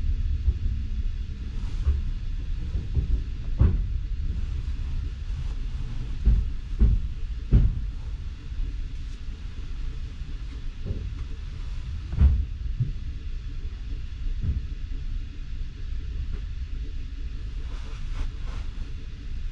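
Low rumble inside a passenger train carriage as the train comes to a stop at a station, with a low hum falling in pitch at the start. Scattered knocks and clunks from the carriage, the loudest about 4, 7½ and 12 seconds in.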